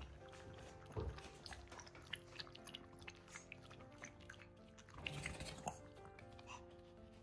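Maltese puppy drinking and eating at stainless steel bowls: a run of small, quick, faint clicks and crunches from lapping and chewing, over quiet background music.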